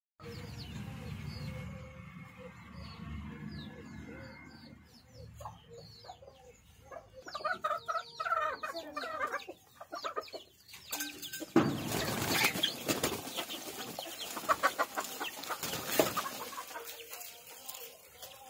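Domestic chickens: chicks peeping repeatedly, a hen clucking, and bursts of rustling noise in the second half.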